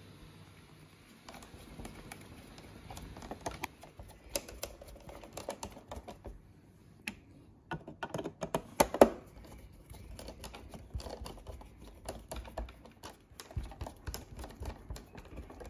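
Irregular small clicks and taps of screws and plastic parts being handled and screwed in as a Roborock robot vacuum's laser sensor unit is set back in its housing, with a cluster of louder clicks about nine seconds in.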